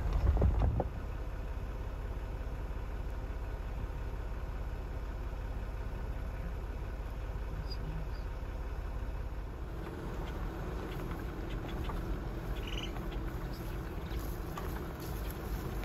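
Steady low rumble of a vehicle engine idling, with a buffet of wind on the microphone in the first second and a faint steady hum joining after about ten seconds.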